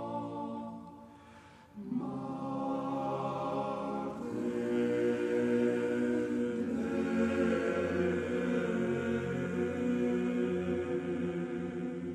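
Background choral music: voices singing slow, sustained chords. It fades out about a second in and comes back with a new chord just before two seconds.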